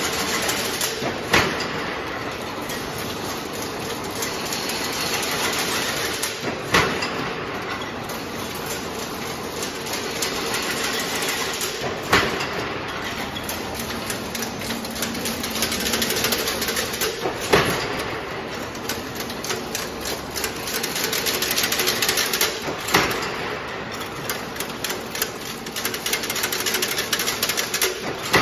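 Two-wire fully automatic chain link fence weaving machine running: a fast, continuous mechanical clatter, with a sharp knock about every five and a half seconds.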